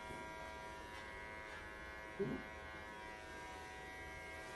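Electric pet hair clippers running steadily with a buzzing hum as they shave a Welsh Corgi's coat. A brief low sound cuts in about two seconds in.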